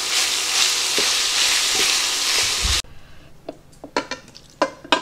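Ground beef and onions sizzling in a frying pan as they are stirred with a wooden spoon. The sizzle cuts off suddenly a little under three seconds in, followed by a few light scrapes and knocks of the wooden spoon on the pan as the cooked meat is spooned into the slow cooker crock.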